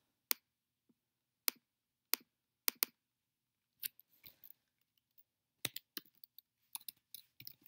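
Sharp clicks of a computer mouse and keyboard as a text box is selected and letters are typed. Single clicks come about a second apart at first, then a quicker run of clicks in the second half.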